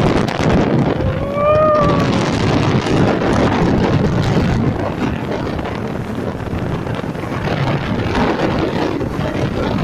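Wind buffeting the microphone of a phone carried on a moving motorcycle, over steady road and vehicle noise. A short pitched tone sounds about a second in, rising and then falling slightly.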